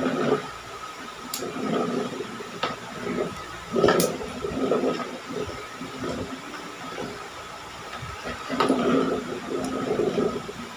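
Close-miked eating sounds: wet chewing and mouth noises come in several bouts, with a few sharp clicks, as rice and salted fish are eaten by hand.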